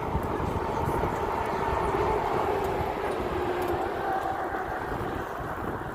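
Wind rushing over a phone microphone while riding a bicycle, a steady low rumble. A faint humming tone sits under the wind and drops slightly in pitch in the middle.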